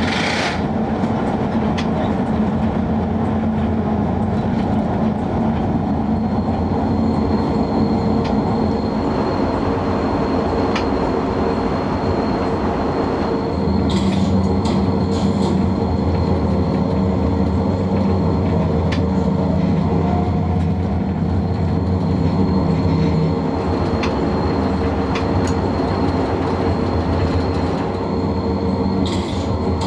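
DB class E 10 electric locomotive, built 1958, running at speed, heard from the driver's cab: a steady hum and whine of the running gear and blowers over the noise of wheels on the rails, with scattered faint clicks. The low hum grows louder about halfway through, and a few short high hisses come near the middle and near the end.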